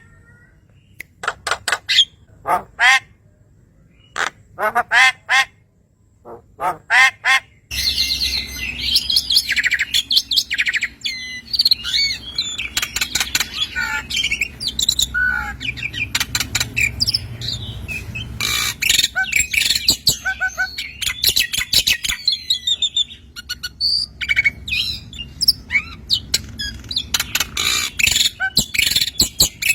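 Recorded songbird calls. First come short bursts of rapidly repeated harsh notes with gaps between them; about eight seconds in, it switches abruptly to dense, continuous high-pitched chirping and twittering over a low steady hum.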